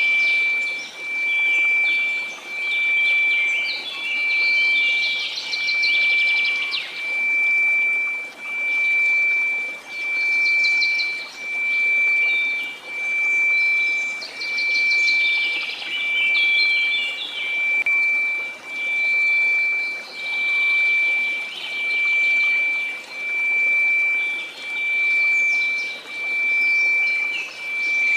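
Steady 2334 Hz pure tone over faint white-noise hiss, swelling and fading in even pulses about once a second. Birds chirp and sing throughout.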